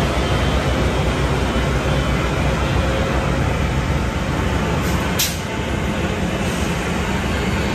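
A stationary passenger-train locomotive running at a standstill, giving a steady low rumble and hum. There is one short sharp click a little past the middle.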